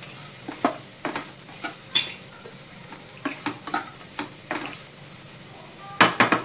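Wooden spatula stirring and scraping chopped vegetables in a non-stick kadai over a steady frying sizzle, in short strokes about every half second. Near the end comes a quick cluster of three or four louder knocks.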